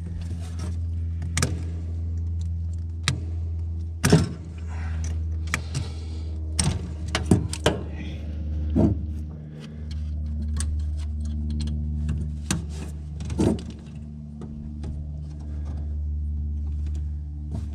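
Scattered clicks, taps and light metallic knocks of hand tools, screws and wiring being handled while a heater kit is wired in, over a steady low machine hum that dips briefly about two thirds of the way through.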